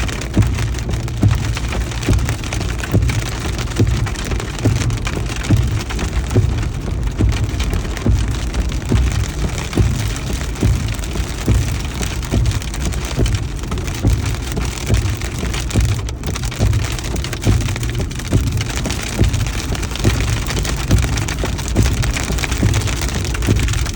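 Heavy rain and hail pelting down in a thunderstorm: a dense, steady patter of many sharp taps over a continuous low rumble.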